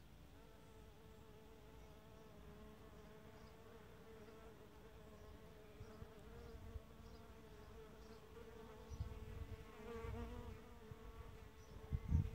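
A bee buzzing in flight: a steady hum that wavers slightly in pitch. Low rumbles come in near the end, the loudest just before it stops.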